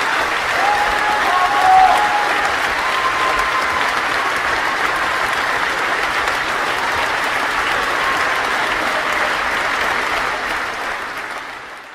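A crowd applauding, with a few short whistles in the first few seconds. The applause fades out near the end.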